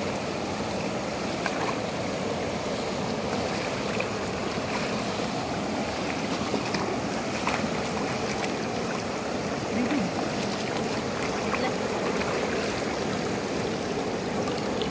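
Steady rush of a shallow, fast-flowing river, with small splashes and sloshing from hands groping in the water among grass at the bank.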